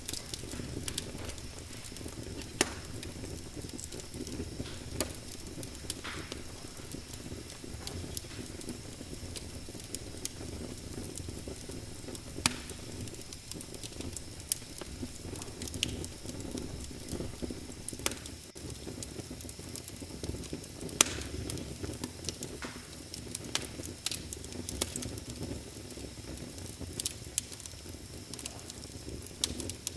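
Wood fire burning in a fireplace: a steady low rumble with irregular sharp crackles and pops throughout, a few louder pops standing out.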